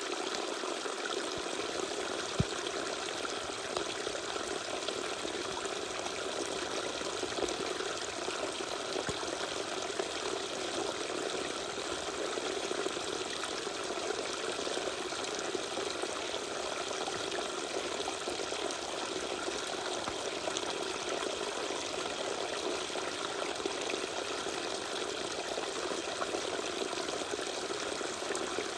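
Small waterfall: water spilling and trickling steadily, a light splashing with little deep rumble.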